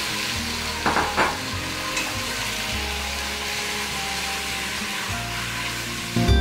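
Beef chunks sizzling in hot oil in a stainless steel pot as they are stir-fried with a silicone spatula, with two brief louder scrapes about a second in.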